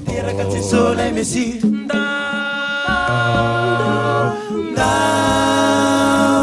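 Male vocal group singing a Christmas carol a cappella in close harmony over a low bass voice, holding long chords; a new chord comes in about halfway through.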